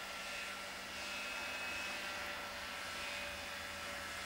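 Snowmobile engine running steadily as the machine drives across the lake ice: a distant even drone with a faint whine, dipping slightly in pitch near the end.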